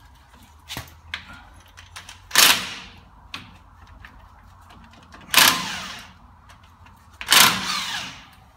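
Cordless impact wrench firing in three short bursts, loosening the four nuts on the lower swivel-hub (kingpin) bearing cap of a Toyota Land Cruiser front axle.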